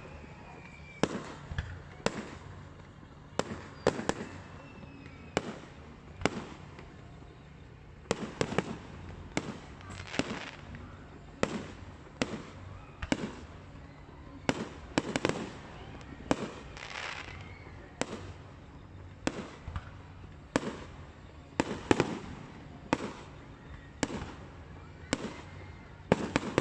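Aerial fireworks display: a continuous run of sharp bangs from shells bursting, about one or two a second, with quicker clusters of bangs a third of the way in, just past the middle and about four-fifths of the way through.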